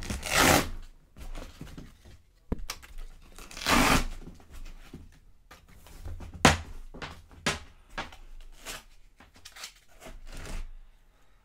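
Straps on a foam packing insert being undone: the webbing is drawn through its metal slide buckles and dragged across the foam. Two longer scraping rushes come at the start and about four seconds in, then a series of light clicks and knocks.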